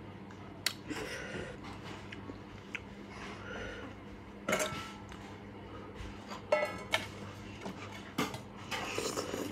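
Metal spoon clinking and scraping against a bowl of vegetable soup while eating, in scattered short clinks, a few of them ringing briefly.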